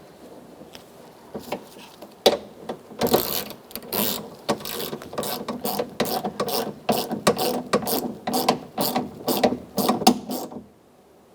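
Ratchet wrench with a 10 mm socket clicking as it runs in a door handle mounting bolt. The clicks are faint at first, then quick and repeated for about eight seconds, and stop shortly before the end.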